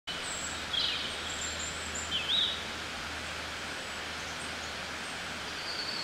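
Outdoor background ambience: a steady hiss with a low hum, and birds chirping a few times, loudest about a second in and again past two seconds.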